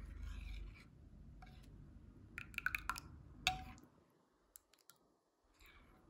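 A metal spoon scraping and clinking against a ceramic soup bowl while stirring soup: a run of light clicks about two and a half seconds in, then one sharper clink with a short ring a second later.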